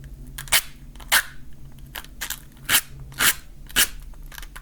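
A match struck repeatedly against a matchbox's striking strip: five short, sharp scratches at uneven intervals without a lasting flame, from boxes that seem slightly defective.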